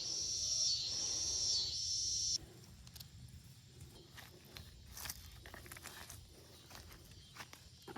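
A high, pulsing insect buzz that cuts off suddenly about two seconds in, followed by light rustling and footsteps through the garden plants.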